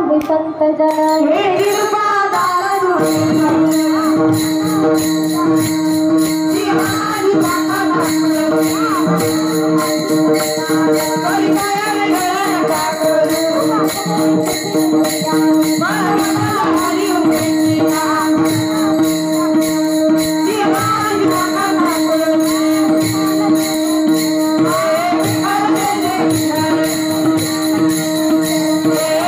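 Devotional Marathi bhajan in raga Bhairavi: many small brass hand cymbals (taal) clashing in a steady rhythm under sung melody, over a held drone note. A pakhawaj drum joins about three seconds in.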